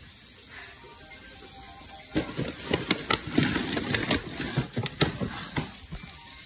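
Irregular crackling and rustling of things being handled, starting about two seconds in, over a faint steady hiss.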